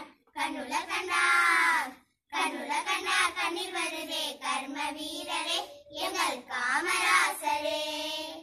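A group of young schoolgirls singing a song together in unison, with a short break about two seconds in.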